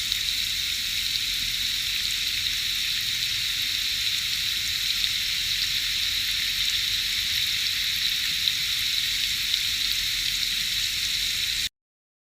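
Steady high-pitched hiss with faint scattered crackles, which cuts off abruptly near the end.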